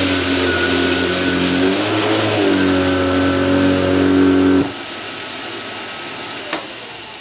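Electrolux UltraFlex bagless canister vacuum cleaner running at full suction with a powerhead attached. Its motor pitch dips briefly about two seconds in as the airflow changes. About four and a half seconds in it is switched off with its dust bin full, and the motor winds down with a fading, falling whine, with a single click near the end.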